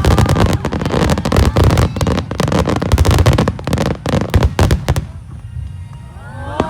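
Fireworks bursting overhead in a rapid, dense barrage of loud bangs for about five seconds, then easing off to a quieter lull near the end.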